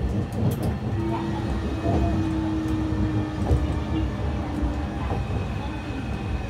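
Sapporo City Tram 8510-series car running on street track, heard from inside the car: a steady low rumble of wheels on rail, with a steady electrical whine from its Mitsubishi IGBT VVVF inverter and traction motors from about a second in until near five seconds.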